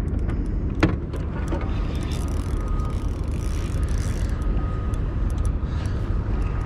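Steady low rumble on a small open boat, with one sharp click about a second in.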